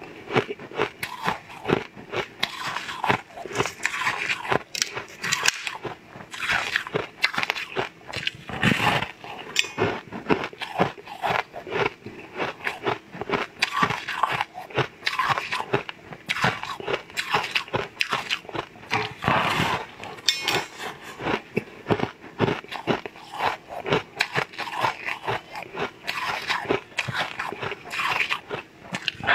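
Eating sounds from a purple star-shaped cake: repeated crunchy bites and chewing, with irregular crackles packed close together throughout.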